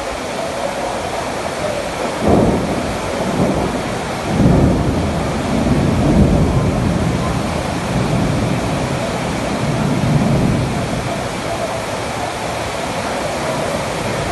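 Heavy downpour of rain pouring steadily onto a flooded street, with deep rumbles swelling about two seconds in, again for a few seconds from about four seconds, and once more near ten seconds.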